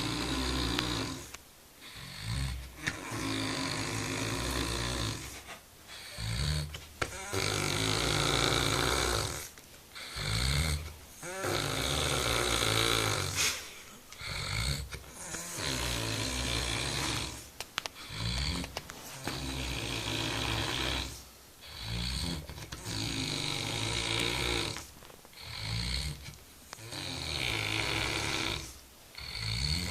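A man in deep sleep snoring heavily, one long loud snore every few seconds with short quieter pauses between breaths.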